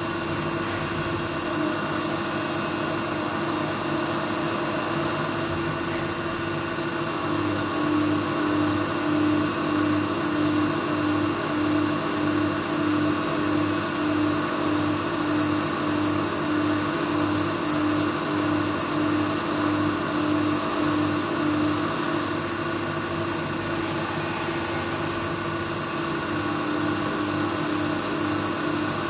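CNC milling machine cutting metal under flood coolant: a steady spindle whine and cutting noise over the hiss of coolant spray. A regular pulsing, about two a second, comes in about eight seconds in and fades out around twenty-two seconds in.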